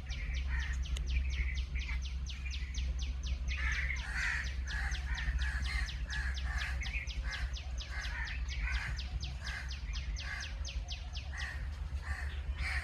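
Birds chirping: scattered short chirps over a rapid, even train of high sharp notes, about five a second, with a steady low rumble underneath.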